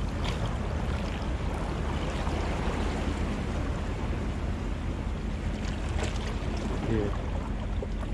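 Steady low hum of a boat's motor, under a haze of wind and water noise.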